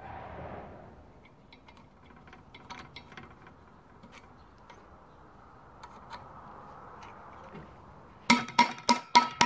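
Metal-on-metal work on a ball bearing with the stem tip of an engine valve: faint scraping and small clicks, then, near the end, about five sharp ringing metallic taps in quick succession, roughly three a second.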